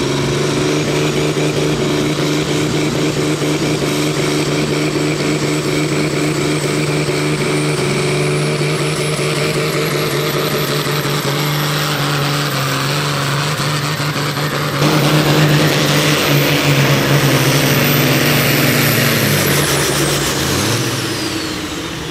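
Red International Harvester pulling tractor's diesel engine running hard under load as it drags the weight sled, with a steady deep engine note and a high whistle that climbs from about a third of the way in. It gets louder about two-thirds through, then the engine note and the whistle fall away near the end.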